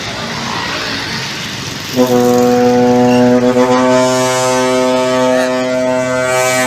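Intercity bus's ship-style air horn (klakson kapal) sounded in one long steady blast of nearly five seconds. It starts about two seconds in, over road traffic noise, and cuts off sharply at the end.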